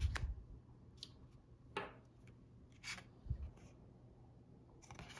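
Tarot cards being handled against a wooden tabletop: a soft thud as a card is set down at the start, then the brief slide of card stock and a few light taps and clicks as the card is picked up and held.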